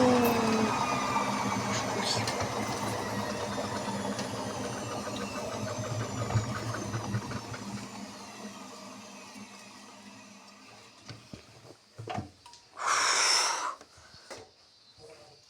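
Samsung washing machine drum spinning down after a hard spin with an unbalanced load, its motor whine falling in pitch and fading over about ten seconds. A few clicks and a short whoosh follow near the end.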